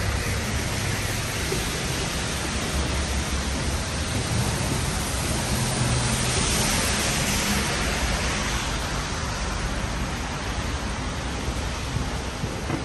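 Wet city street ambience: a steady hiss of traffic tyres on a rain-soaked road and falling rain, over a low engine rumble. The hiss swells for a couple of seconds midway.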